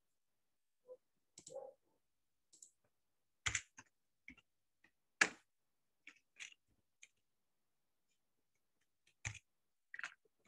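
Computer mouse and keyboard clicks: about a dozen separate sharp clicks at irregular intervals, the loudest a little over five seconds in.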